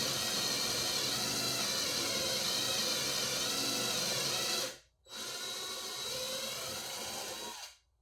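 Power drill running steadily for a little under five seconds, stopping briefly, then running again for about two and a half seconds, driving screws through pocket holes to join the strips of a wooden frame.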